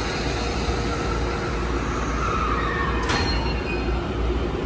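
Toei 10-300 series subway train at an underground platform, its motors and equipment humming steadily as it gets ready to pull out. A single sharp clack comes about three seconds in.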